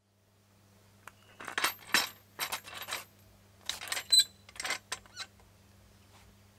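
A metal rear paddock stand being fitted under a motorcycle's swingarm: a run of metallic clanks and rattles in two clusters, loudest about four seconds in.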